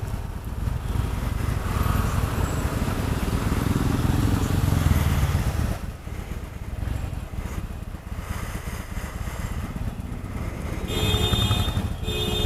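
Harley-Davidson Sportster 883 Superlow's air-cooled 883 cc V-twin running in slow traffic, heard from the rider's seat. It grows louder over the first few seconds, drops suddenly about six seconds in, and picks up again near the end. Near the end a higher steady tone with several overtones sounds in short blasts.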